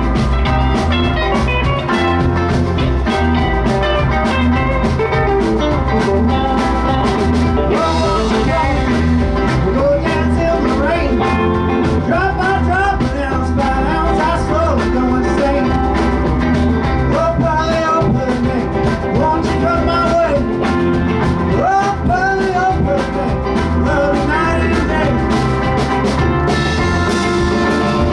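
Live rock band playing: drums keeping a steady beat under bass and guitar, with bending lead lines.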